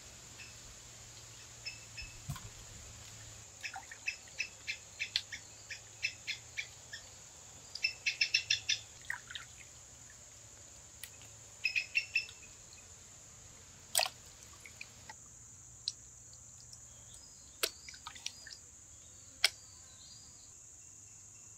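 Steady high-pitched insect drone, with clusters of short chirps through the first half and three sharp knocks in the second half.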